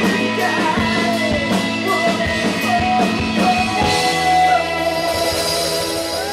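Live rock band playing, with drums and electric guitars; about four seconds in the drum hits stop and a held chord rings on.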